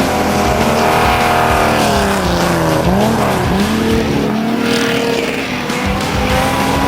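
Stock Omega race car engines running hard. Their pitch falls and then climbs again about three seconds in, as the cars come off the throttle and accelerate again.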